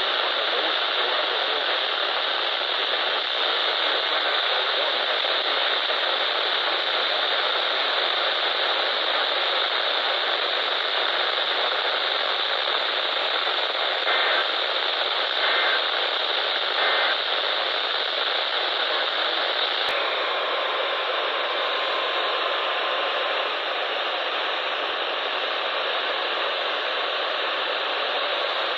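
Steady hiss of radio static from a weather-radio receiver with no voice on the air. Three faint short blips come about a second and a half apart near the middle, and a click about two-thirds of the way in is followed by a slight change in the hiss and a faint steady tone for a few seconds.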